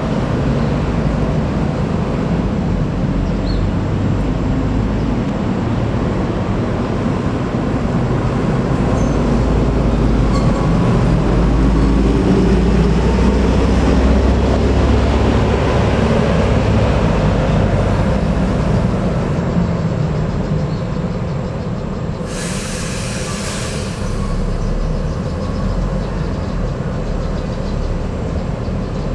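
Large diesel bus engine running, a steady low rumble that swells in the middle and then eases off. A short hiss lasting about a second and a half comes about two-thirds of the way through.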